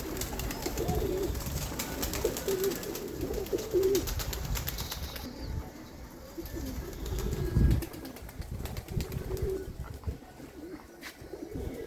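Domestic pigeons cooing, in low warbling calls, with a single dull low thump a little past the middle.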